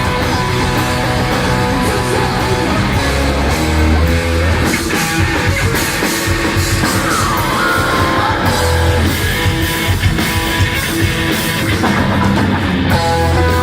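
Rock band playing live: heavy electric guitars over bass and drums, loud and without a break.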